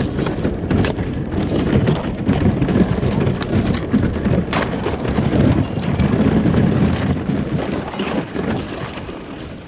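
Thin lake ice breaking against a kayak's hull and paddle: dense, continuous crackling and crunching of ice plates, with sharp cracks here and there, fading near the end.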